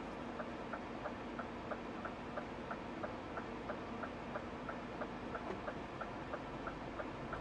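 Turn-signal indicator ticking steadily inside a lorry cab, about three ticks a second, over the steady hum of the engine.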